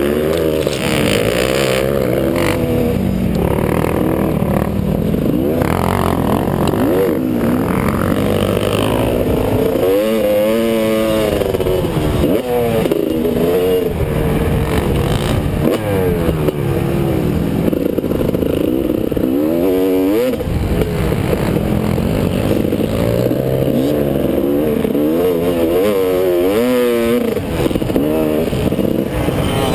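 Motocross bike's engine revving up and falling back again and again as the rider accelerates, shifts and brakes around a dirt track, heard from on the bike.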